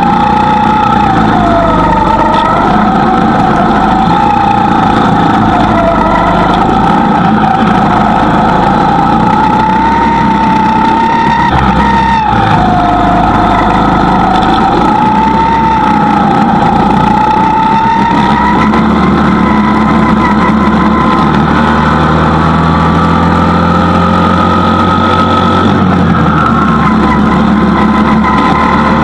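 Go-kart engine running at speed, its pitch rising and falling repeatedly.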